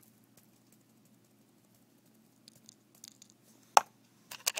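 Sharp clicks from handling the plastic cap of a fish-food container: one loud click just under four seconds in, then a few quick ones near the end, over a faint steady hum.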